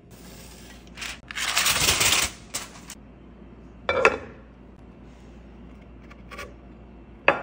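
Aluminium foil crinkling as it is pulled off a flan mould, then a ceramic plate knocking against the aluminium mould about four seconds in, and a sharp clack near the end as the flipped mould and plate are set down on the stone counter.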